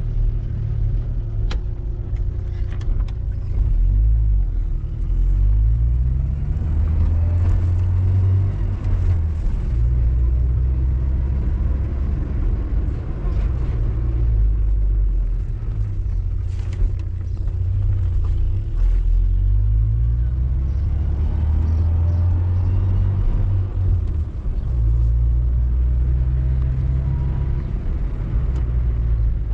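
Vehicle engine and road noise while driving, the engine note climbing several times as the vehicle speeds up through the gears.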